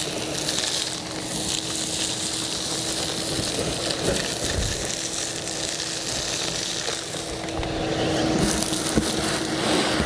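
Ridgid shop vacuum running: a steady hum under rushing air as its hose sucks up loose dirt from the rim of a post hole, with a few brief knocks of grit and small stones going up the hose.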